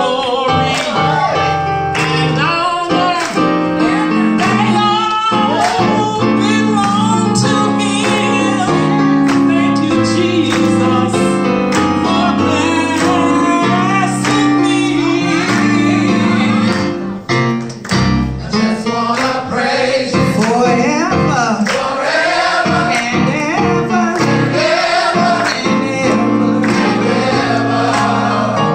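Music: female and male voices singing together over guitar accompaniment, with a brief drop in level a little past the middle.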